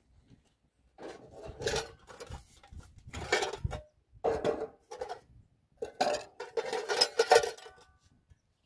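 Metal cooking pots, lids and bowls clattering and clinking as they are picked up and stacked, in four bunches of knocks with brief metallic ringing.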